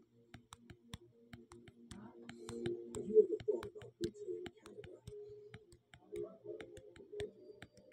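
Quick irregular clicks, several a second, over a low muffled sound that comes and goes.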